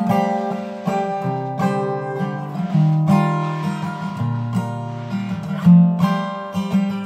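Acoustic guitar strummed in chords, each strum ringing on into the next, with one harder strum about five and a half seconds in.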